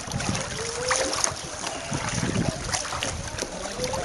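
Floodwater sloshing and splashing irregularly around legs wading through deep water.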